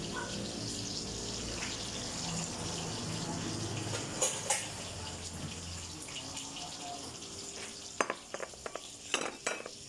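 Kitchen tap running water into a sink, a steady hiss that eases off about halfway through, followed near the end by several sharp clicks and knocks.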